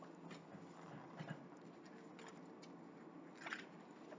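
Near silence: room tone with a few faint, short rustles, the clearest about a second in and near the end.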